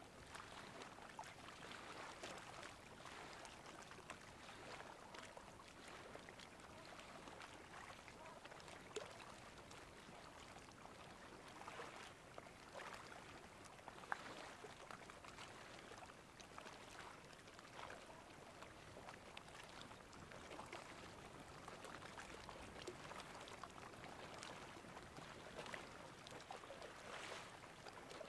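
Faint sea water at high tide lapping and trickling, with many small splashes and a couple of slightly sharper ticks.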